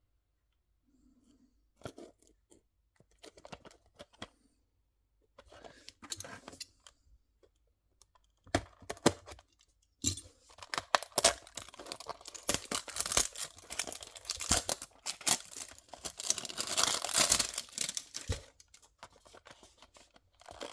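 Packaging of a diecast model car's box being handled: a few scattered clicks and taps at first, then from about halfway through, several seconds of dense rustling and scraping as the box is opened.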